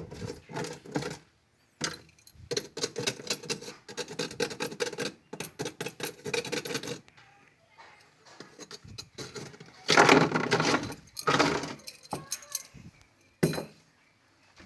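Hard objects clattering and rattling, with a run of quick clicks and then several louder scraping knocks about ten and eleven seconds in and a single sharp knock near the end.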